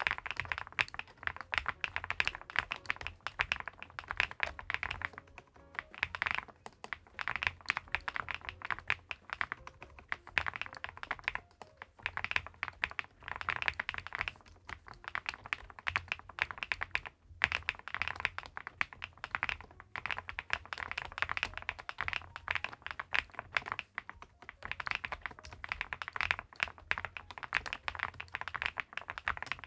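Fast, continuous typing on a WEIKAV Record Alice V2 split-Alice-layout mechanical keyboard, with its aluminium case and leaf-spring gasket mount: a dense run of key clicks, broken by a short pause every six seconds or so.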